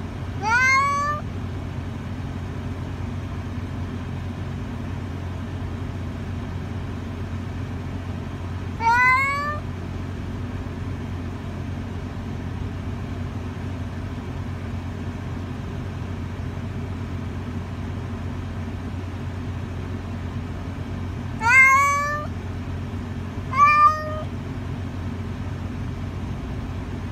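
Adult domestic cat shut in a travel carrier howling: four drawn-out meows, each rising in pitch, the first two far apart and the last two close together. The cries of a cat unhappy at being caged.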